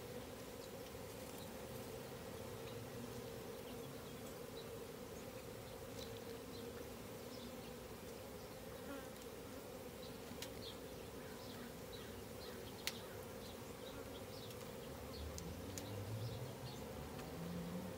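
A disturbed honeybee colony buzzing steadily during a hive cutout, with one sharp click about two-thirds of the way through.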